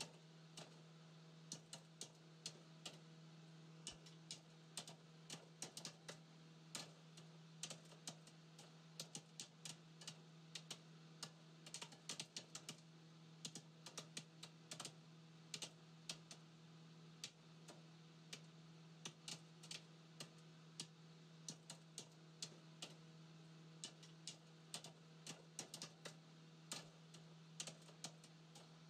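Faint, quick, irregular light clicks, several a second, over a low steady hum.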